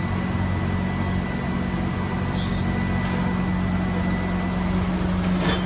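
Steady low machine hum with a faint constant whine above it, and two light clicks, one about halfway through and one near the end.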